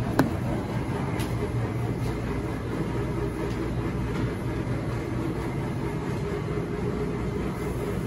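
Wascomat commercial front-loading washing machine running in its wash cycle: a steady low rumble and hum, with one sharp click just after the start.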